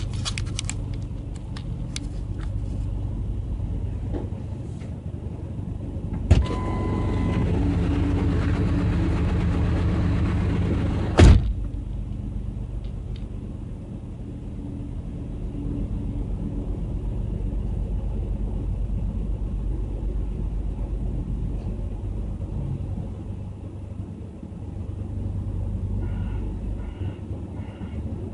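Steady low rumble of an idling vehicle engine. About six seconds in there is a sharp knock, the noise grows louder for about five seconds, and it ends with a second sharp knock, like a vehicle door opened and then shut.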